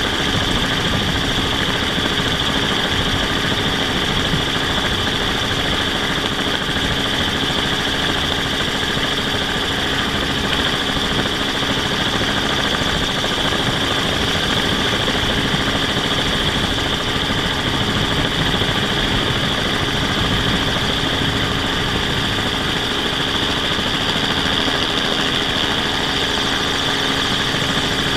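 Steady, unchanging whine of the camera drone's motors and propellers, over a rough rumble of wind on the microphone.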